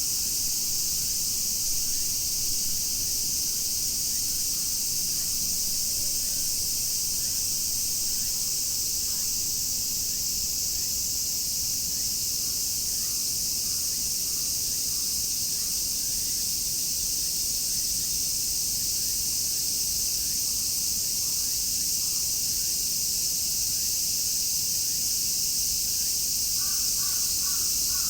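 Chorus of cicadas shrilling steadily and unbroken, a dense high-pitched wall of sound. Near the end a bird calls several times in quick succession, faint beneath the cicadas.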